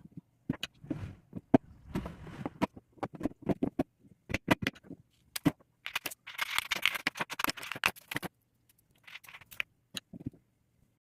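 Toy cars and ice being handled: a run of sharp clicks and knocks with scraping, thickest for a couple of seconds around the middle.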